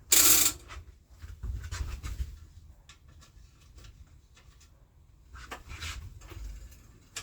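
A short, loud rasping clatter right at the start, then quieter rustling and small clicks: bike parts and tools being handled during reassembly.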